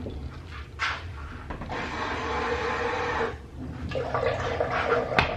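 Water running from a kitchen tap into a bowl for about a second and a half, stopping, then running again near the end, with a sharp click just before it stops.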